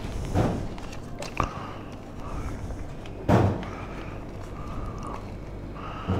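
Four dull thumps over a steady low hum; the loudest comes a little past the middle.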